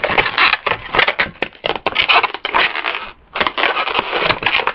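Latex 260 modelling balloons being handled and twisted, giving a run of rubbery squeaks, crackles and rubbing, with a short lull about three seconds in.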